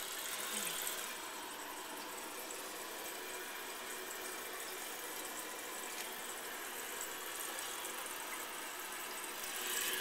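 Toilet tank refilling: water rushing steadily through the fill valve into the tank, growing a little louder near the end.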